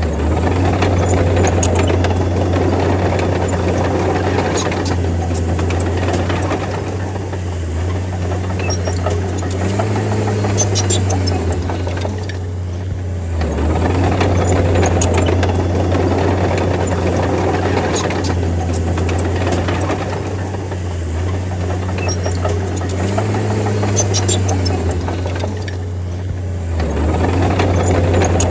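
D30 crawler bulldozer's diesel engine running under changing load, its pitch rising briefly twice, with scattered metallic clanks and rattles.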